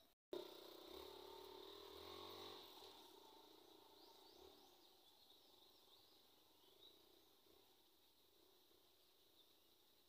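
Faint outdoor field ambience: a steady insect drone with a few brief high chirps about four seconds in, over a soft low sound that fades during the first three seconds.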